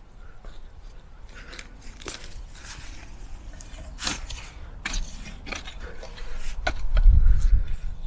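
Steel garden fork digging into dry soil, its tines scraping and crunching in a run of short sharp strokes through the middle. A low rumble comes in near the end.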